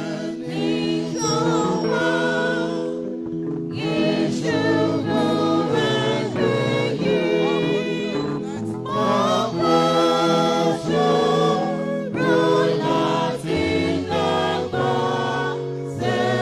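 A church choir singing a gospel song in Yoruba, with voices holding long notes over sustained low chords.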